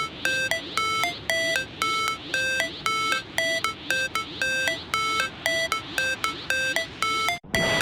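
A looping melody of short electronic beeps, about two notes a second, stepping between a few pitches, with a brief dropout near the end.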